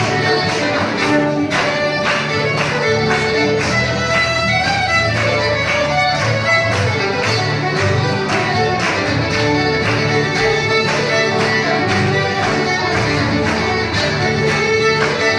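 Two fiddles playing a tune together, backed by two acoustic guitars strumming a steady rhythm.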